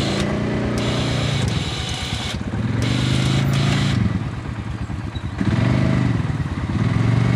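Kawasaki Prairie 360 ATV single-cylinder engine revved again and again in rising-and-falling surges a second or two long, as the quad sits stuck in deep mud and its wheels try to dig it out.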